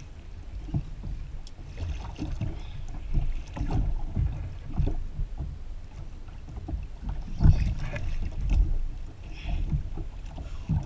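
Wind rumbling on a kayak-mounted camera's microphone and water against the kayak hull, with irregular knocks and thumps through the hull; the loudest thump comes about seven and a half seconds in.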